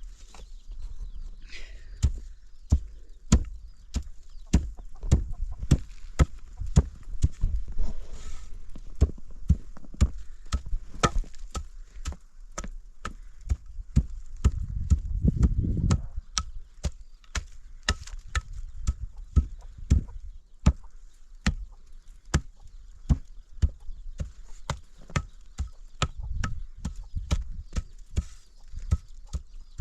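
Repeated sharp strikes, roughly one to two a second, as of a hand tool hitting a hard material. A low rumble swells for about two seconds midway.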